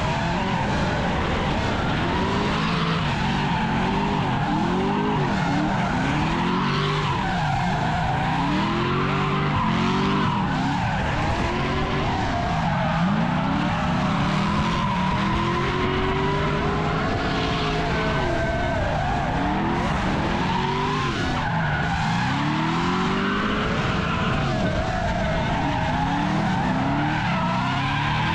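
Drifting car's engine revving up and down over and over while its rear tyres screech and skid, with a steady high whine running over it.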